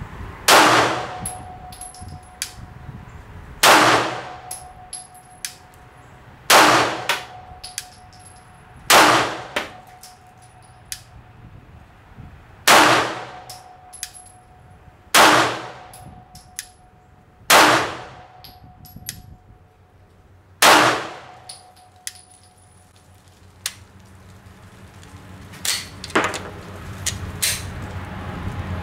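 Glock 19 9mm pistol fired eight times in slow, deliberate single shots, roughly one every three seconds, each shot followed by a short metallic ring. Quieter clicks and knocks fall between the shots and a few come near the end.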